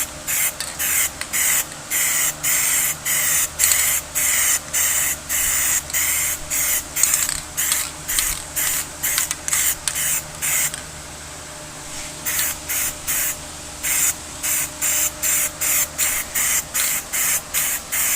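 Aerosol can of Plasti Dip rubberized coating spraying in short, quick bursts, about two a second, as light dusting coats, with a pause of a second or so midway.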